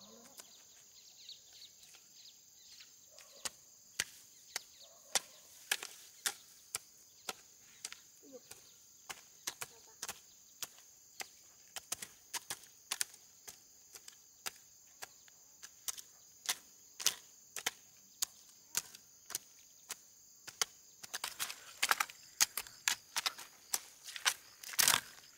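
Repeated chopping strokes, sharp knocks a little under two a second, coming faster and louder in the last few seconds, over a steady high buzz of insects.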